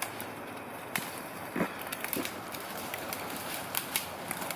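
Scattered snaps and crackles of brush and twigs as someone pushes through thorny undergrowth, with a cluster of sharper snaps near the end.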